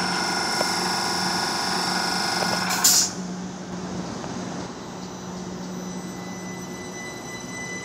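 Southern Class 377 electric multiple unit running along the platform, a steady hum with several high steady tones from its traction equipment. About three seconds in there is a short loud burst, then the sound drops to a quieter electric train running with a single high steady whine.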